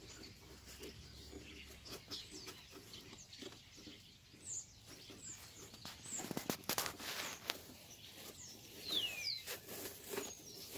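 Birds chirping with short falling calls, several in the second half. Light plastic clicks and knocks come in between as a new panel air filter is handled and fitted into a car's plastic airbox.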